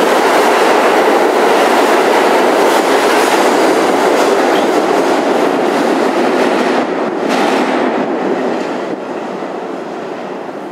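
An R62A New York City subway train departing: the running noise of its wheels on the rails, loud and steady at first, then fading over the last few seconds as the train pulls away into the tunnel.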